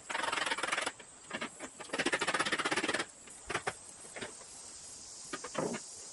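Rapid metallic rattling from a box truck's roll-up rear door being dismantled, in two bursts of about a second each, followed by a few scattered knocks.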